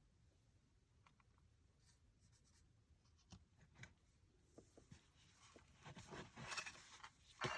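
Near silence with faint scattered clicks and rubbing, growing a little louder near the end.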